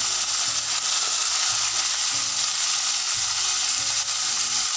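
Potato pieces sizzling steadily as they fry in hot oil in a kadai.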